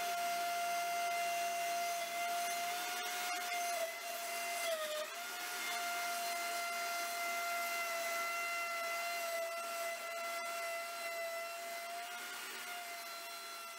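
Festool plunge router running with a steady high whine as it cuts an arc into a wooden plate to partial depth. Its pitch sags briefly under load about five seconds in, and the sound eases off slightly near the end.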